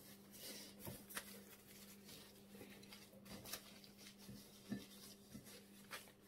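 Faint rustling of baking paper and soft rubbing of hands pressing and shaping pizza dough, with a few brief crinkles; a faint steady hum underneath.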